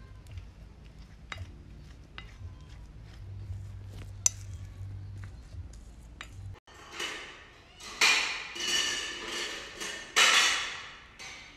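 A spoon clicking and scraping against a ceramic bowl while a soft mashed mixture is stirred, over a low hum. About seven seconds in, kittens start meowing loudly, several calls in quick succession.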